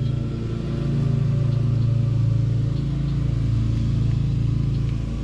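Farm Jeep engine running steadily with a low hum, rising and falling slightly in loudness.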